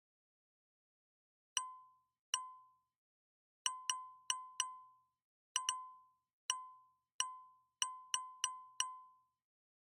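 Short electronic ding, one bell-like tone each time, repeated about fourteen times at irregular intervals, several coming in quick pairs, each dying away within half a second.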